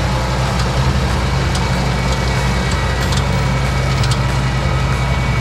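Yanmar EcoTra tractor's diesel engine running under load, driving a rear-mounted flail mower that is cutting roadside grass. A steady low hum, with scattered sharp ticks and crackles from cut grass and debris striking the mower.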